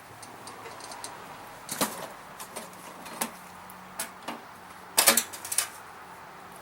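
Scattered sharp clanks and knocks from handling the snowblower and tools, with a quick cluster of louder knocks about five seconds in.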